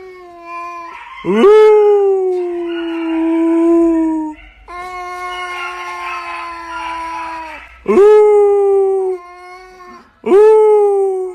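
Tabby cat yowling: a string of long, drawn-out calls, each sweeping sharply up at the start and then held at a steady pitch. The loudest come about a second in, about eight seconds in and near the end.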